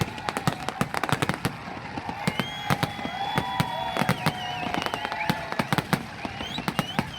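Fireworks going off: a rapid, dense string of cracks and bangs, with high whistling tones drawn out through the middle.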